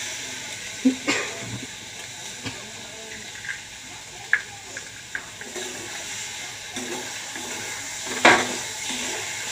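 Spice-coated potatoes frying in mustard oil in a steel kadai, a steady sizzle with a few sharp taps and clicks. A little after eight seconds in a louder crackling burst comes as raw egg goes into the hot oil.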